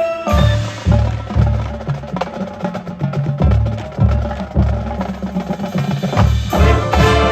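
Marching band percussion section playing a drum feature: deep bass drum hits and sharp clicks of sticks and rims over drums. The band's pitched instruments swell back in near the end.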